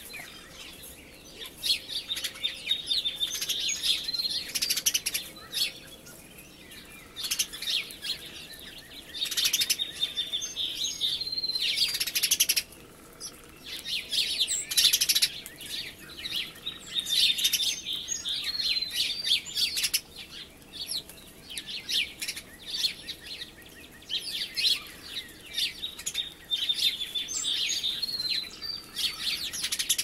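Small songbirds chirping and twittering, in clusters of quick high chirps a second or two long with short gaps between.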